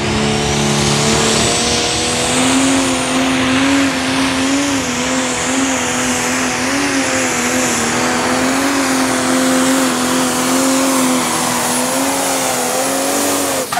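Pro Stock pulling tractor's turbocharged diesel engine running flat out under load. Its revs climb over the first two seconds and then hold with a slight waver for about eleven seconds, with a high whine rising alongside. The engine note cuts off suddenly near the end, as the throttle is shut at the end of the pull.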